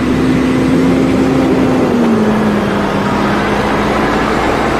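Diesel engine of a heavy box truck towing a drawbar trailer, running as the rig pulls through a turn. Its steady hum drops slightly in pitch about two seconds in.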